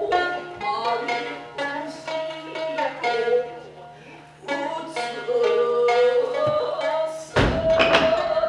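Gidayū-style ningyō jōruri accompaniment: a shamisen plucking notes while a chanter sings in long held tones. Near the end a loud burst of thumps comes over the music.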